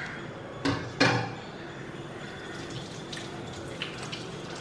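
Wet, sticky no-knead bread dough being folded and shaped by hand on a floured counter: two short wet slaps about a second in, then a few faint sticky clicks as the dough is worked.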